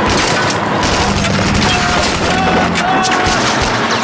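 Battle gunfire: rapid rifle and machine-gun fire, with the armoured car's turret gun firing, over the steady drone of its engine.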